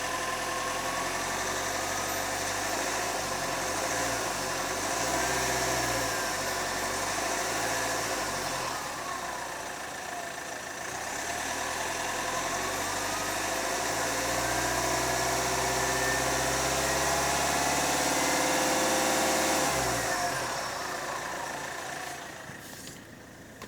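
Warm 1.6 CRDi four-cylinder turbodiesel running and revving, its turbocharger whistle rising and falling in pitch several times like a police siren. The sound dies away near the end.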